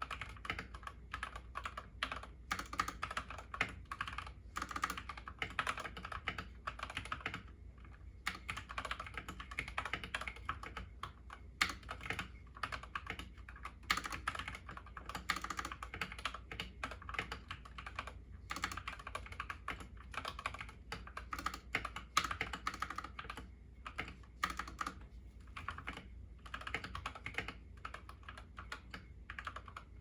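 Fast, continuous typing on a YUNZII KC68 mechanical keyboard with lubed Gateron Yellow linear switches and XDA keycaps: dense, uneven key clicks with a few brief pauses.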